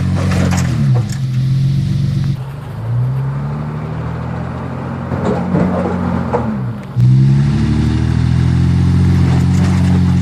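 Nissan Patrol's TB48 4.8-litre straight-six petrol engine revving hard under load as the 4x4 is driven at a rock step. The revs rise and drop several times, with a sudden jump about seven seconds in, and knocks and scrapes are heard against the engine.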